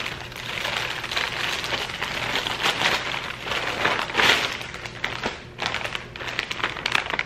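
Plastic poly mailer bag crinkling and tearing as it is pulled open by hand, a continuous run of irregular crackles, with the plastic-wrapped item inside rustling as it comes out.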